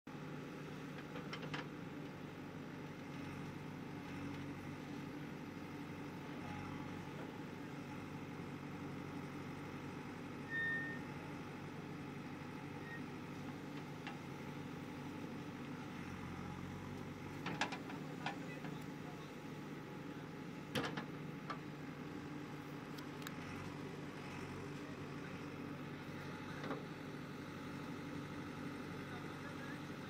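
JCB 3DX backhoe loader's diesel engine running steadily under load while the backhoe digs soil and swings to a dump truck. A few sharp knocks stand out in the second half.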